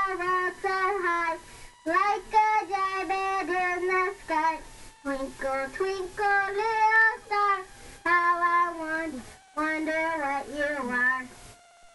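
A young girl singing in short phrases with brief breaks for breath; she stops just before the end.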